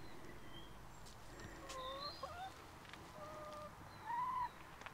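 Domestic hens making a handful of short, soft clucking calls, the loudest a little over four seconds in.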